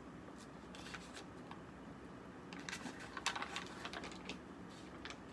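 Quiet room tone with a few faint clicks and rustles, clustered about two and a half to three and a half seconds in.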